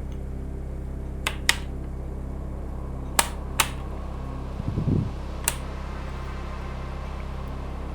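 Steady low hum with five sharp clicks, in two quick pairs and then a single one, and a short rattle near the middle.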